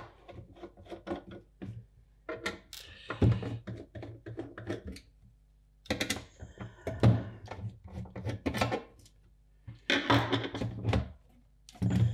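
Screwdriver taking screws out of the metal bottom panel of a passive monitor controller, with the metal case being handled: runs of small clicks and scrapes broken by louder knocks and clatter. The louder clusters come in bursts with short quiet gaps between them.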